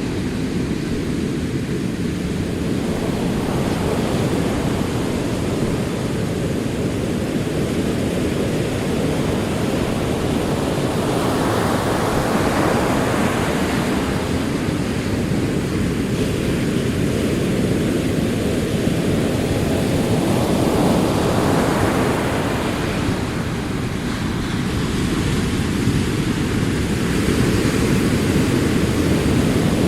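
Ocean surf: a steady low wash of rolling waves. Twice, a little before halfway and about two-thirds through, a wave swells into a louder hissing break, and a third is building at the end.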